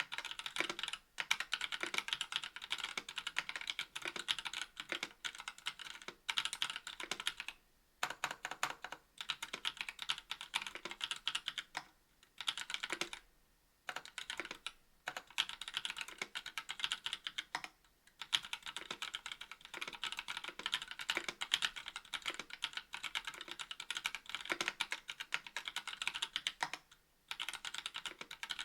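Continuous typing on a KBD67 V2 MKII mechanical keyboard with stock NovelKeys Cream linear switches on a brass plate and GMK keycaps: fast runs of key presses and returns, broken by several brief pauses, the longest about halfway through.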